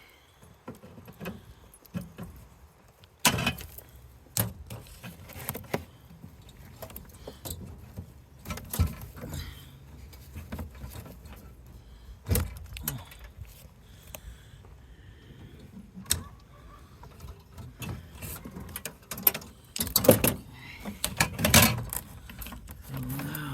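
Irregular metallic clinks, knocks and rattles of hand-tool work on a soda vending machine's refrigeration unit, with the two loudest knocks near the end.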